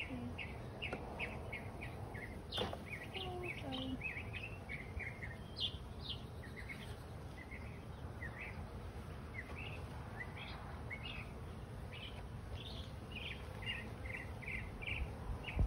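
Northern mockingbird singing: a rapid, unbroken run of varied short chirps and repeated phrases.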